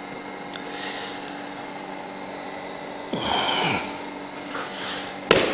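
A vinyl plank is handled with a brief scraping rustle about three seconds in, then drops by accident and hits the floor with one sharp clack near the end, over a steady low hum.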